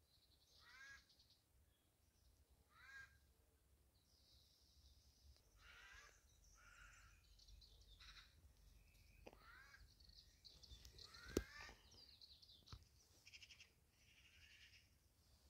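Faint bird calls over near silence: a few descending calls every few seconds, with scattered high chirps between them.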